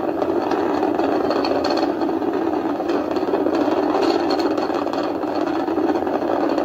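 SpaceX Falcon 9 first stage's nine Merlin engines firing during ascent: a steady, dense rumble with no breaks.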